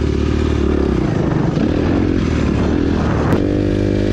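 Motocross dirt bike engine under way on a dirt track, its revs rising and falling. A little over three seconds in there is a short click, and the engine then holds one steady note.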